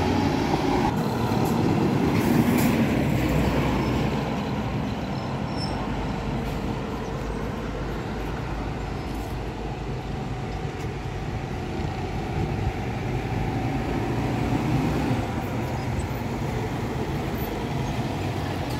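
Road traffic on an expressway, with heavy vehicles going past: one loud pass-by in the first few seconds fades away, and another swells and passes around fifteen seconds in.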